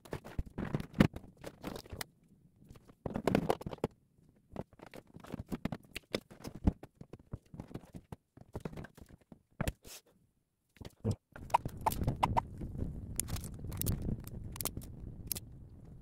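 Scattered clicks, knocks and rustles of hands handling an air conditioner's plastic casing and parts. About eleven seconds in a steadier background noise takes over, with a few more clicks.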